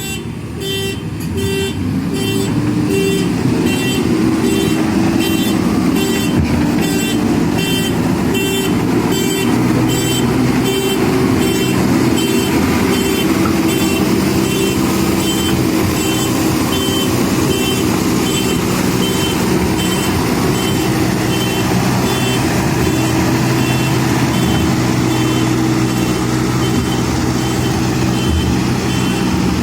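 JCB backhoe loader's diesel engine running under load, its pitch rising about two seconds in, with a reversing alarm beeping steadily about every two-thirds of a second.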